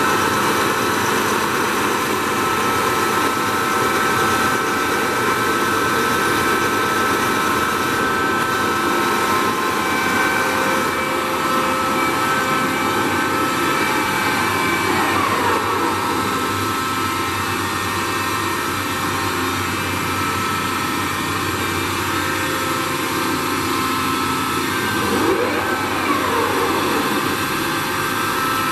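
Toolmex TUR 560 M engine lathe running under power: a steady mechanical whine with several held tones from its geared drive. A few tones glide in pitch about halfway through and again near the end.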